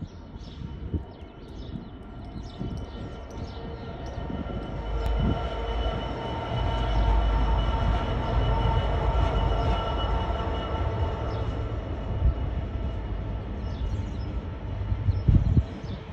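Class 66 diesel-electric locomotive passing, its EMD two-stroke V12 engine droning with a steady set of tones that swells to its loudest about halfway through. The rumble of the container wagons follows, with a couple of louder knocks near the end.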